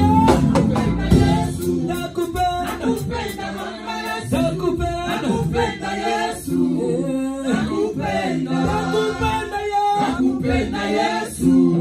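A mixed group of male and female singers sings a Congolese gospel song in harmony through a PA. Loud band backing thins out about a second and a half in, leaving the voices to carry the song almost unaccompanied.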